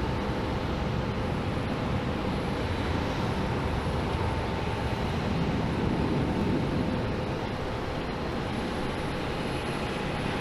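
Jet airliner engines at takeoff power: a steady, dense rush of jet noise with a faint whine, swelling a little about two-thirds of the way through.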